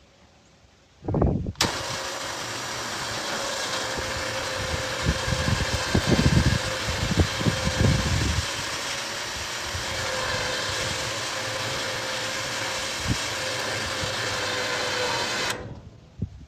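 A vehicle engine starts about a second in and runs steadily, with heavier low knocks for a few seconds in the middle, then the sound cuts off suddenly near the end.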